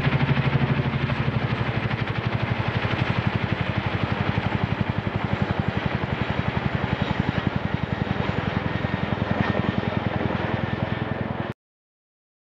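Boeing CH-47 Chinook tandem-rotor helicopter flying overhead, its rotor blades beating in a rapid, even pulse. The sound cuts off suddenly near the end.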